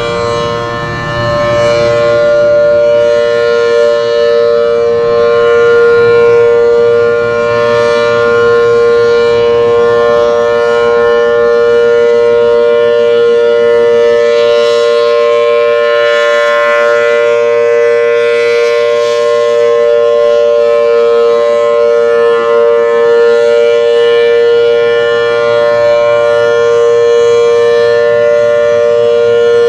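Federal Signal Thunderbolt 1000T supercharged dual-tone tornado siren sounding at full speed, holding a steady, loud two-tone chord.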